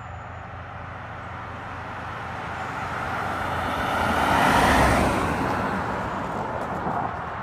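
A road vehicle passing by: tyre and engine noise swells to a peak a little over halfway through, then fades. Underneath, a steady low engine hum.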